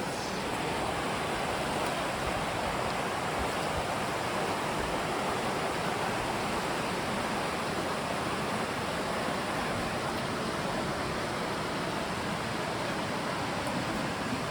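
River water rushing over rocks: a steady, even rush.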